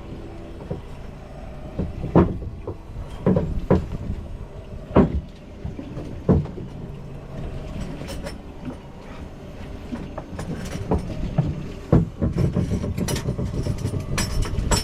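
Irregular knocks and thumps of dive gear being handled on a boat, over a steady low rumble, busier and more rattling near the end.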